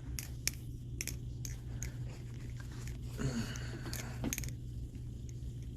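Balisong (butterfly knife) handled in the hand: a string of sharp clicks and clacks from its handles and metal parts, with a denser patch of handling noise about three to four and a half seconds in.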